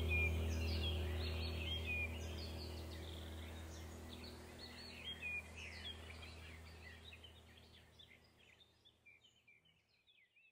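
Birds chirping over a low steady hum, the whole fading out to silence near the end.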